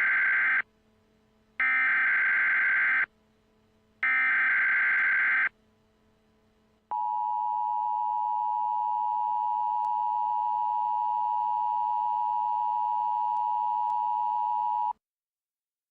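Emergency Alert System signal: the end of one burst of SAME header data tones and then two more, each about a second and a half long with short gaps between them. After a brief pause comes the steady two-tone EAS attention signal, held for about eight seconds before it cuts off sharply.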